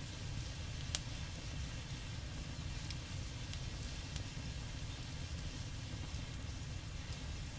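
Member's Mark four-burner gas griddle running with its burners lit under the steel top. A steady low rumble carries scattered faint crackles and clicks, the sharpest about a second in and another near four seconds, as oil seasons onto the hot steel.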